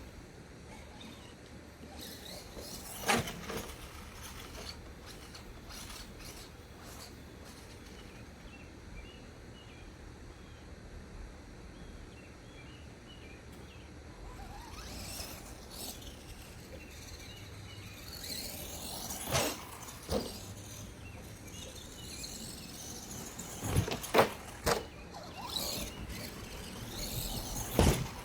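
Electric motor of a 1:10 RC monster truck whining up and down in pitch as it drives, with several sharp knocks and thumps as the truck bounces over the ground, most of them in the second half.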